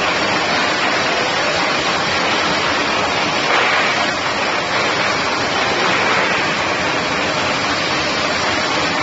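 Continuous fryer full of chicken nuggets, oil sizzling and bubbling in a steady rain-like hiss, with slight swells a few times.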